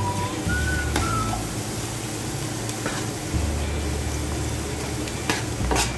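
Garlic and onion sizzling steadily in hot oil in a pot. Near the end come a couple of sharp scrapes as chopped beef lung starts sliding off a stainless steel tray into the pan.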